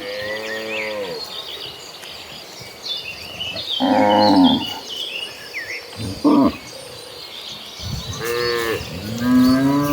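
Cattle in a herd mooing, five calls in turn, some short and some drawn out, the last a long low moo near the end. High chirping runs underneath.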